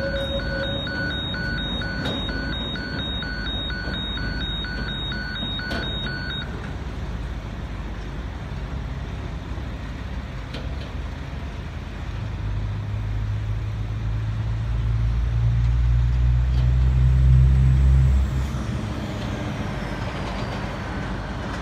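Level-crossing warning bell ringing in a fast even pulse, then stopping about six seconds in as the train clears and the boom gates lift. Later a road vehicle's engine rumbles past, growing louder and dropping away sharply near the end.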